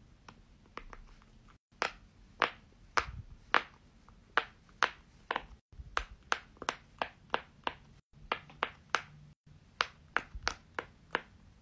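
Silicone Pop It fidget toy, its bubbles pressed in one after another with a finger, each giving a short pop, about two to three a second.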